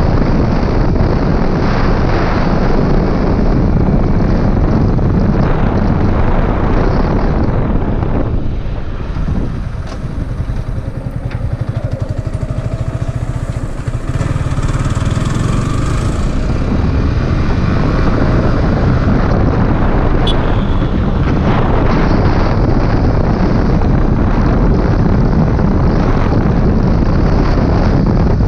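Yamaha R15 M motorcycle being ridden at speed: its 155 cc single-cylinder engine with heavy wind rushing over the microphone. About a third of the way in the wind noise eases for several seconds and the engine note comes through more clearly, rising and falling in pitch, then the wind noise builds again.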